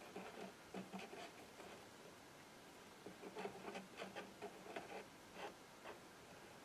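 Faint handling sounds from an air-rifle barrel and its aluminum muzzle brake being worked by hand: scattered small clicks and rubbing. They come in a cluster in the first second and again from about three seconds in.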